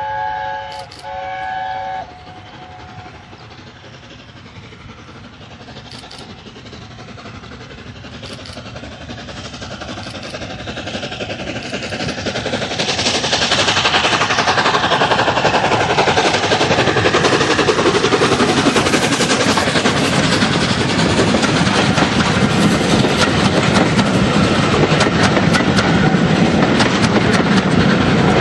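LNER A4 Pacific steam locomotive's chime whistle: the end of one blast, then a second short blast about a second in. The locomotive's running noise then builds steadily as it approaches and is loudest from about fourteen seconds in as it passes, followed by the coaches rolling by with wheel clatter.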